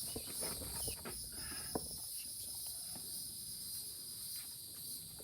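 A steady, high-pitched chorus of insects, with scattered soft knocks and rustles; one sharper click comes just under two seconds in.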